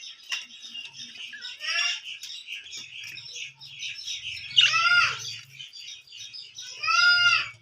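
A flock of birds chirping and twittering continuously, with three louder, ringing calls standing out over the chatter, the last and longest near the end.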